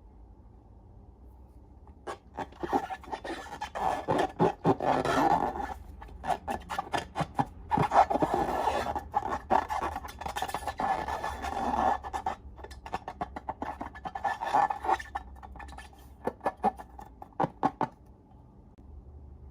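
Slime being worked by hand: a run of sticky crackles, clicks and squelches that starts about two seconds in and stops near the end.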